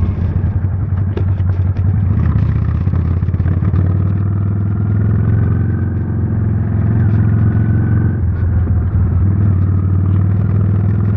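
Honda Steed's V-twin engine running steadily under way.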